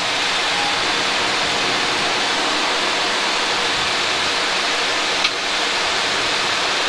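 Steady rushing roar of air in a Boeing 737-800 cockpit as the landing gear comes down, the airflow noise having swelled up with the gear extension. A single short click sounds about five seconds in.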